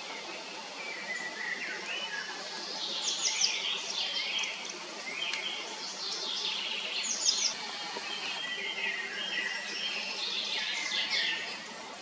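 Small songbirds singing and chirping, with a bright song phrase repeated about every four seconds over lighter twittering.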